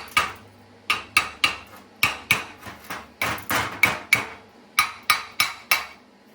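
Hammer tapping on the steel stub of a sheared-off, rust-stuck bolt that has just been built up with stick weld. Light, ringing metal-on-metal taps, about three a second in short runs with brief pauses, stopping shortly before the end.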